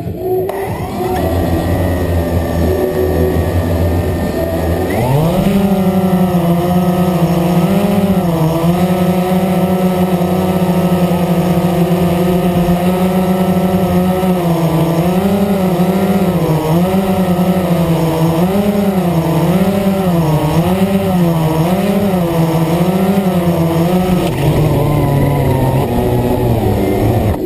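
Blade 350 QX quadcopter's motors and propellers whining, heard from the camera on its own frame. The pitch rises steeply as the rotors spin up to lift off about five seconds in, then wavers up and down with throttle corrections in flight, and drops near the end.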